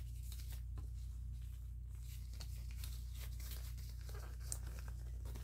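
Disposable exam gloves being pulled onto the hands: faint rustling and crinkling with small clicks, over a steady low electrical hum.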